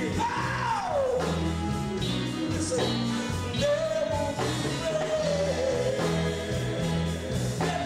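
Men's gospel vocal group singing live into handheld microphones, a lead voice sliding down in pitch about half a second in, over a band with a repeating low bass line.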